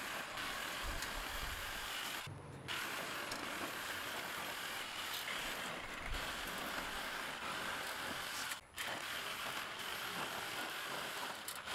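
Handheld power tool cutting a rusty corrugated metal roofing panel, a continuous cutting noise that breaks off briefly twice.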